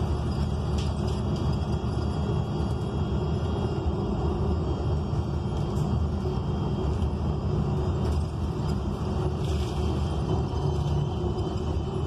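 Steady low rumble inside a 2019 ENC Axess bus under way, from its Cummins Westport L9N natural-gas engine and road noise, with a few faint clicks.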